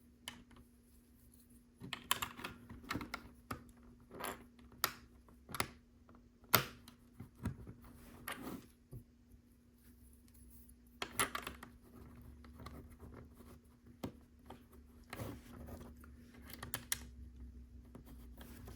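Plastic LEGO pieces clicking and tapping as they are handled and pressed together, in irregular sharp clicks that come in small clusters. A faint steady hum runs underneath.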